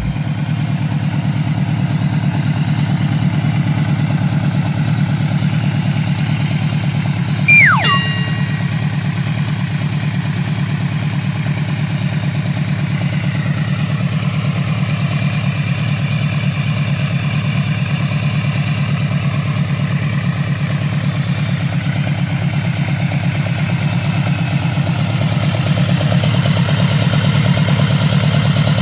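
Yamaha VMAX's V4 engine idling steadily, getting a little louder near the end. About seven to eight seconds in, a short falling whistle ending in a click stands out over it.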